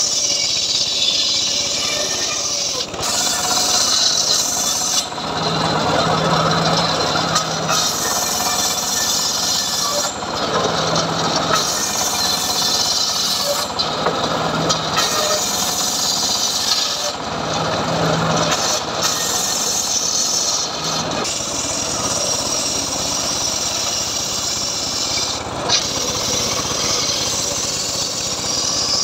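Homemade table-mounted circular saw ripping mahogany lengthwise, several cuts one after another, with the blade easing briefly between passes.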